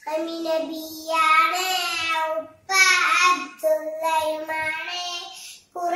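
A young girl singing a Mappila devotional song alone, without instruments, in long held phrases that break briefly for breath about two and a half seconds in and again near the end.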